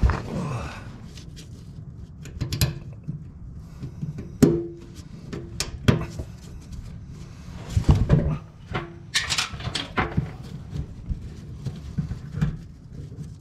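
Irregular knocks, clicks and clanks as hands and tools work at the connections on top of a new metal fuel tank under a van, during a fuel tank replacement. A few of the knocks leave a short metallic ring.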